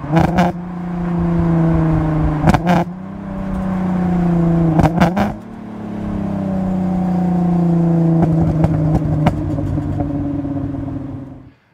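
Supercharged 3.2-litre V6 engine of a VW Caddy van pulling in gear, heard from inside the cab, revs between about 3,000 and 4,000 rpm and growing louder in the middle. Several sharp clicks come through along the way, and the sound cuts off suddenly near the end.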